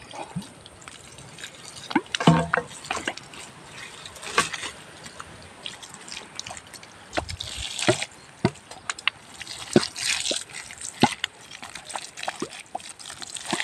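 A stream of water poured onto loose soil, splashing and trickling, with many irregular drips and splats.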